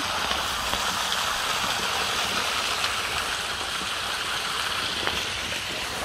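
A small stream splashing steadily over a low rocky drop, a little waterfall.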